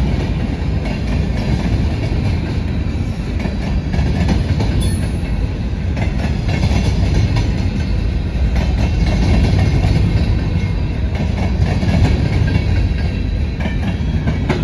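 Freight cars of a long CSX manifest train rolling past slowly, a steady rumble with the clickety-clack of wheels over the rail.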